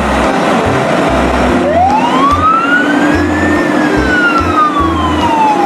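A siren wail: one slow rise in pitch over about two seconds, then a long slow fall, with a new rise beginning near the end. Background music with a steady beat plays underneath.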